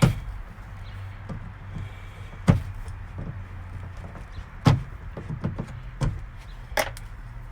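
Plastic interior trim pieces and clips being popped out of a 1990–93 Honda Accord's rear door area by hand: five sharp snaps and knocks a second or two apart, with lighter clicks of handling between, over a low steady hum.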